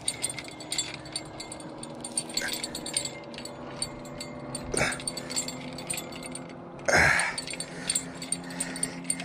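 Baitcasting reel cranked while fighting a hooked fish, with small clicks and rattles from the reel over a steady low hum. Two short breathy huffs about five and seven seconds in.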